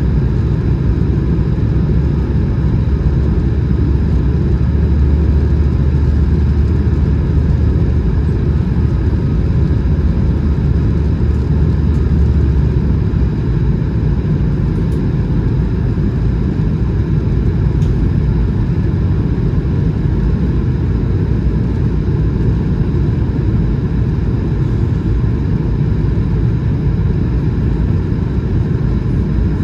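Steady low rumble of airflow and engine noise heard inside the cabin of an Airbus A220-100 in flight before landing. A deeper hum swells for several seconds in the first half, then eases back.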